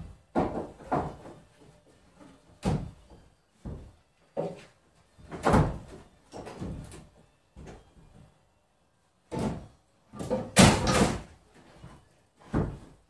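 Wooden knocks and bumps as a plank is pressed, shifted and knocked into place against the wall framing: about ten irregular thuds, with a louder cluster late on.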